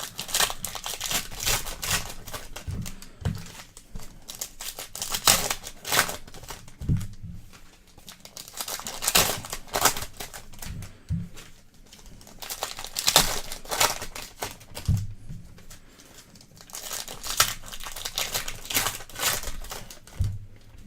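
Plastic trading-card wrapping crinkling and tearing in irregular rustling bursts as the box of basketball card packs is opened and unwrapped, with a few light handling knocks.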